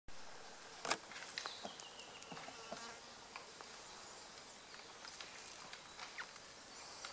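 Fallow buck rubbing its antlers on shrub branches: scattered sharp snaps and rustles of twigs, the strongest about a second in, over a faint insect buzz.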